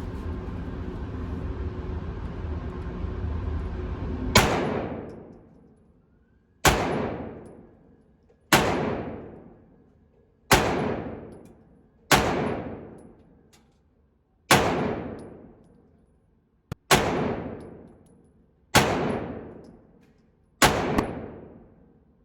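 9mm pistol fired slowly: about nine single shots roughly two seconds apart, each with a long ringing decay. Steady background noise is heard before the first shot, about four seconds in.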